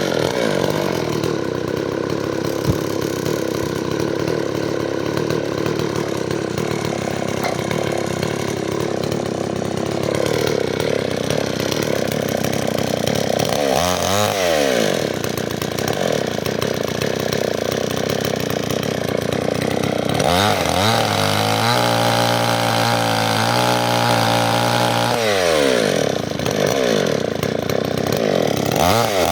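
Stihl two-stroke chainsaw running at high speed through firewood. Its engine speed drops and climbs again about halfway through, then falls to a lower, steadier speed for a few seconds before revving back up near the end.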